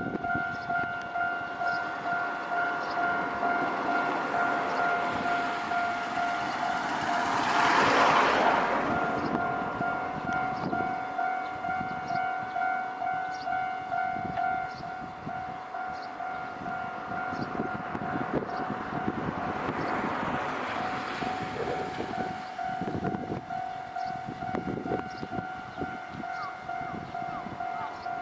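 Japanese railway level-crossing warning bell ringing steadily, about two strikes a second. Train passing noise swells to its loudest about eight seconds in and again around twenty seconds, with clattering of wheels over the rails in the second half.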